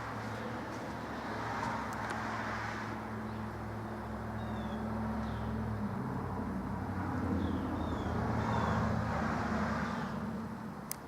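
Motor vehicle traffic on a street: a steady low engine hum that changes pitch about halfway through, with the hiss of vehicles passing swelling and fading. A few faint high chirps in the middle, and a single sharp click near the end.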